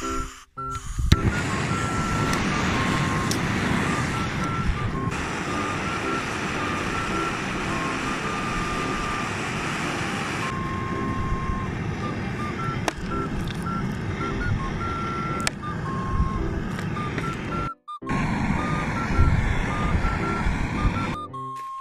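Portable gas burner fitted to a gas canister, running steadily under a pot of water as it heats, a continuous rushing noise that breaks off briefly near the end. Faint background music notes sit above it.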